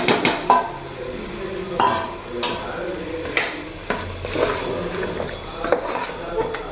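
Chicken and ground masala paste sizzling in an aluminium pressure cooker while a spoon stirs them, with scrapes and sharp knocks of the spoon and bowl against the pot.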